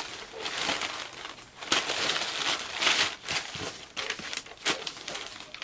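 Clear plastic packaging crinkling and rustling as sheets of sticker labels are pulled out of a plastic bag among bubble wrap, a steady run of irregular crackles and rustles.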